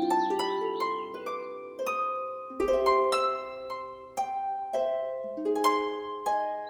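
Gentle plucked-string music, like a harp, with single notes struck about twice a second and left to ring. Birds chirp briefly at the very start.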